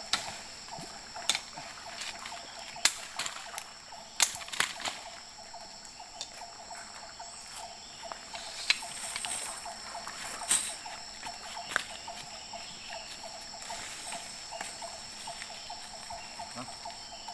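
Steady high drone of forest insects, with scattered sharp clicks and light rustles from a hanging cast net being picked over by hand; the loudest click comes about ten and a half seconds in.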